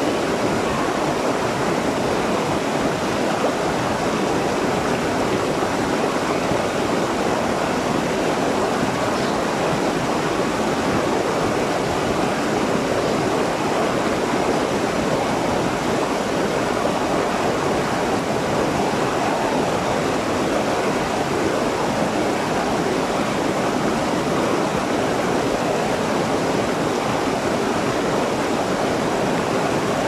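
A small waterfall cascading over rocks, with its water rushing steadily and without a break.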